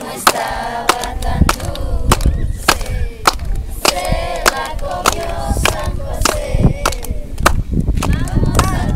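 A group of children's voices singing together outdoors, with sharp cracks and pops scattered irregularly through it.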